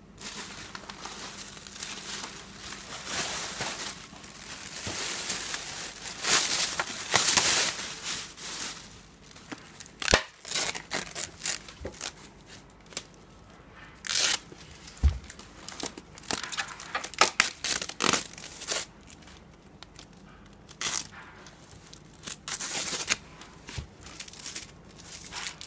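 Foam packing sheet and plastic wrap rustling and crinkling in irregular bursts as a black plastic part is unwrapped by hand, with one dull knock about halfway through.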